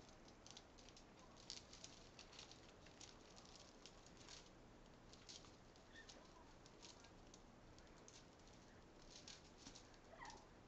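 Blue-fronted Amazon parrot preening: faint, irregular soft clicks and rustles as its beak works through its feathers, with one short squeak near the end.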